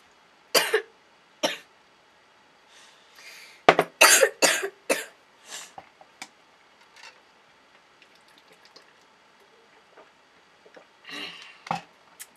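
A woman coughing and clearing her throat in short bursts: a couple of single coughs, then a run of about five about four seconds in, and a few more near the end.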